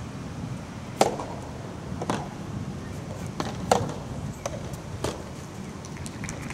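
Soft tennis rally: the soft rubber ball is struck by rackets with sharp pops, the first one about a second in as the serve is hit. Further hits follow every second or so, the loudest a little under four seconds in.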